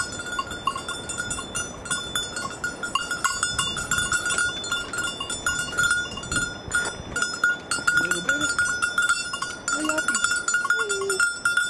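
Many livestock bells clanking and ringing continuously in a dense jangle, as of a grazing herd. A few faint short calls come in the last few seconds.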